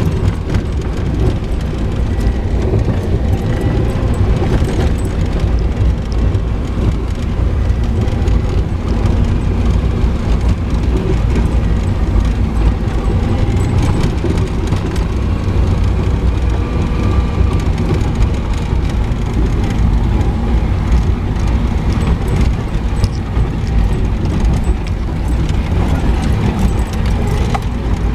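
Jeep driving over a rough dirt trail, heard from inside the cab: a steady low engine and tyre rumble with frequent knocks and rattles from the bumps.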